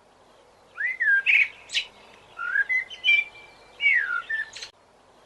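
A songbird singing: short phrases of clear whistled notes that swoop up and down, mixed with quick chirps. The song stops abruptly near the end.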